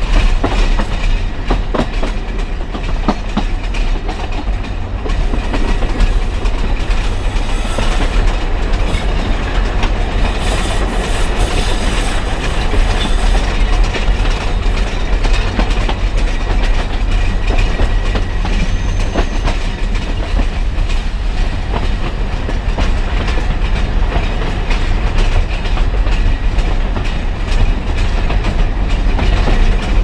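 Alishan Forest Railway train running, heard from inside a passenger car: a steady low rumble of wheels on the track with a few sharp clicks. A higher hiss rises briefly about ten seconds in.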